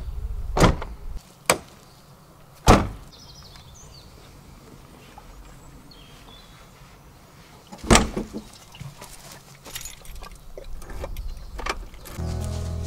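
Land Rover Defender's doors being opened and shut: three sharp clunks and latch clicks in the first three seconds, another loud clunk near eight seconds, then lighter clicks and rattles. Music starts near the end.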